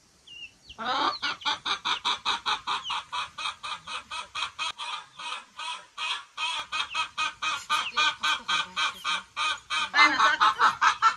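An animal calling in a fast, even series of pulses, about six a second, without a break, growing louder near the end.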